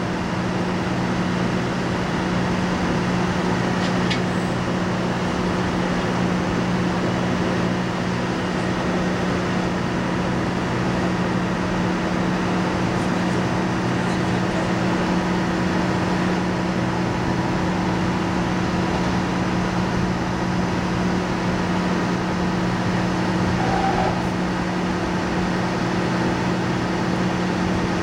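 Steady drone of drilling rig machinery: a constant, even hum with a couple of held low tones under a wash of mechanical noise.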